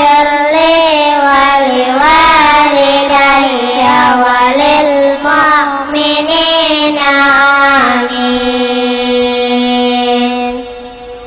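Children reciting Quran verses in a melodic tartil chant, amplified through a microphone and loudspeakers. The ornamented melodic line ends on a long held note that fades away near the end.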